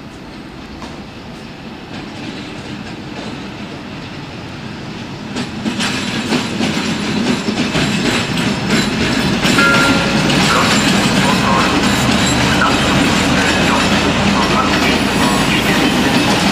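ČD class 735 diesel shunting locomotive and passenger coach rolling past at low speed: wheels clicking over rail joints and points, growing louder from about five seconds in, with a few brief wheel squeals.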